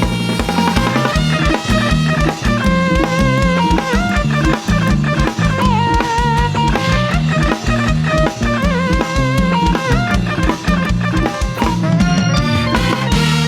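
Thai brass band (trae wong) playing upbeat music: a wavering horn melody over a repeating bass line and a steady drum-kit beat.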